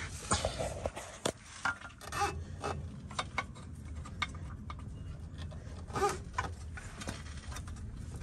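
Irregular metallic clicks and short ringing clinks of bolts and hand tools as engine-mount bracket bolts are threaded by hand, over a low steady hum.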